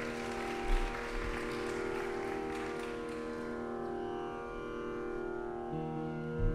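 Veena strings ringing out and slowly fading after the closing strokes of a Carnatic piece, over a steady drone, with a light pluck about a second in and another near the end.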